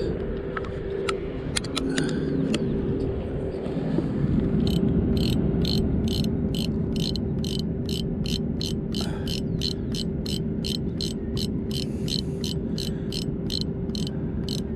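Spinning fishing reel clicking steadily at about three clicks a second, starting a few seconds in. Before that there are a few scattered clicks and knocks, all over a steady low hum and outdoor noise.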